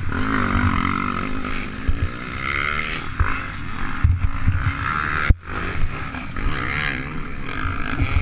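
Motocross bike engines revving and running, picked up by a helmet-mounted camera, their pitch rising and falling with the throttle; a few dull knocks come about four to five seconds in as the rider's KTM 250 SX-F goes down, and the sound cuts out for a moment just after.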